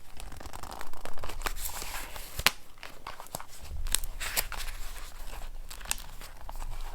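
Paper handled close to the microphone: rustling and crinkling, broken by a number of sharp clicks and taps at uneven intervals.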